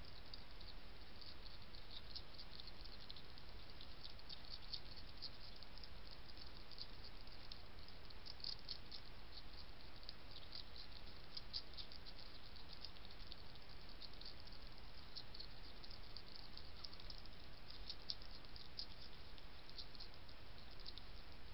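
European hedgehog chewing dry kitten kibble: a fast, irregular run of small crisp crunching clicks over a steady hiss.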